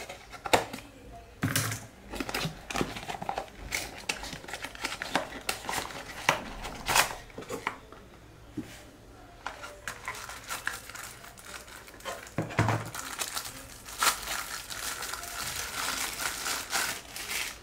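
Packaging of a camera lens cap being opened and unwrapped by hand: crinkling and tearing of the wrapping, with many scattered short clicks and knocks, busiest in the last few seconds.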